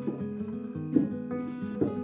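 Background music: a plucked acoustic guitar playing a slow run of single notes.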